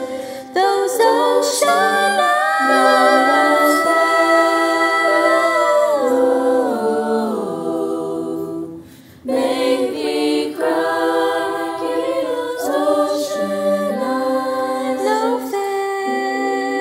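Treble-voice (SSAA) vocal jazz choir singing a cappella in close harmony, holding chords that shift step by step. There is a brief pause a little past halfway, then the chords come back in.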